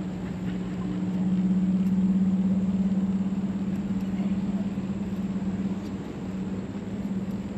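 Chairlift machinery humming steadily at one low pitch, swelling from about a second in and fading again a few seconds later, as when a chair rolls past a lift tower's sheaves.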